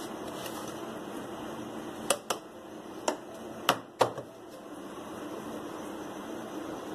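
Five sharp clicks and knocks of kitchen utensils between about two and four seconds in, as the spatula is tapped on the steel cake pan and laid down on the mixing bowl, over a steady background hum.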